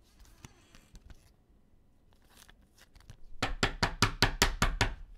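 A quick, even run of about ten sharp taps, some six a second, starting about three seconds in and stopping just before the end, after a few faint handling sounds.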